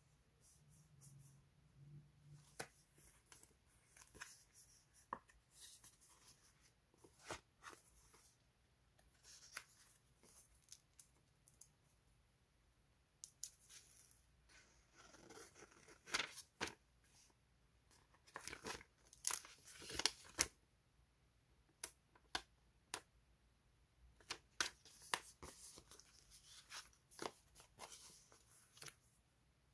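Sheets of paper label stickers handled close up: rustling and crackling as the sheets are bent and flexed, with scattered sharp clicks, busiest in the middle and again near the end.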